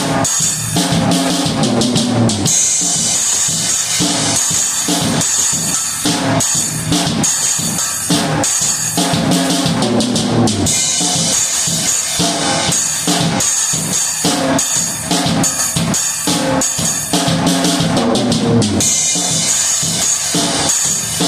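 Drum kit played with a single stick: a steady, repeating groove of bass drum, snare and cymbal strikes.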